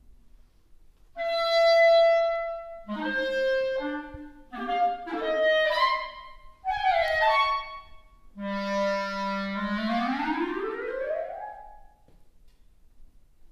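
Solo clarinet playing unaccompanied. After a short pause it holds one note, then plays a quick flurry of short notes. Near the end it starts a low note and slides it smoothly upward in a long glissando that fades away.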